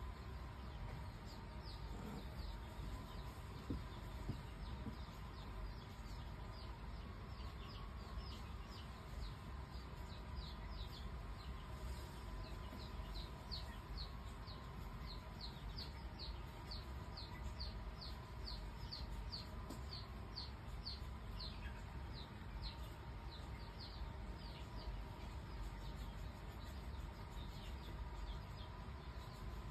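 A small animal peeping: a long run of short, high, falling chirps, about three a second, thickest in the middle and thinning out near the end, over a faint steady hum.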